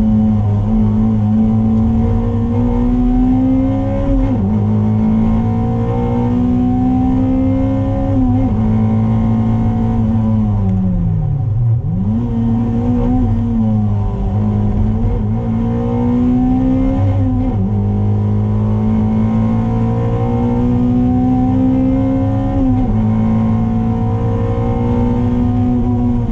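Toyota MR2's 2ZZ-GE four-cylinder engine heard from inside the cabin, pulling hard through the gears on track. Its pitch climbs steadily and then drops sharply at each upshift, every four to five seconds. It falls further twice as the car slows for corners, once near the middle and once near the end, over a steady low drone.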